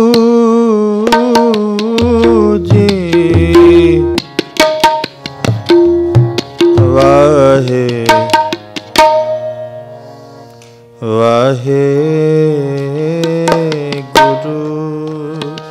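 Harmonium and tabla playing the instrumental lead-in to a Gurbani kirtan shabad. The harmonium holds reedy notes and steps through a melody while the tabla keeps a rhythm of sharp strokes and deep bass thumps that bend in pitch. The music thins out briefly about ten seconds in, then picks up again.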